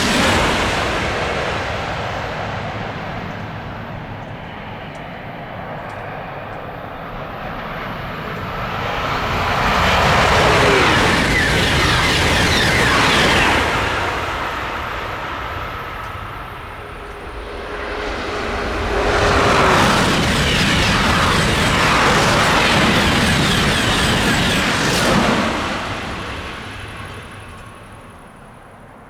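TGV high-speed trains passing at speed: a loud rushing noise that swells twice, each time with a brief falling tone as the train goes by, then fades away.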